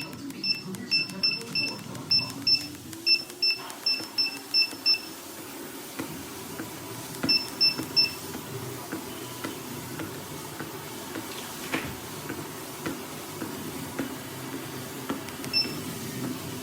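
Walking pad treadmill beeping: a quick run of short high beeps for the first five seconds, three more around eight seconds and a single one near the end, over the steady low hum of its running motor and belt.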